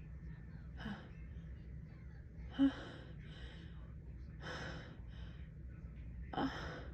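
A woman's breathy gasps and sighs, about six of them, as she works up to a sneeze that does not come: false starts from an allergy-tickled nose. One sharp catch in the throat comes about two and a half seconds in.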